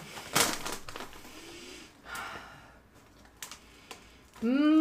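Foil cereal inner bag crinkling and rustling as it is pulled open and handled, with a loud crackle about half a second in and a sniff into the bag. Near the end a short hummed vocal sound rises and falls in pitch.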